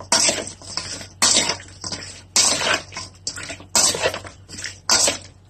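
A metal spoon stirring boiled chicken feet in their sauce in a stainless steel bowl, tossing the dressing through them. Each stroke comes about once a second, starts sharply and fades.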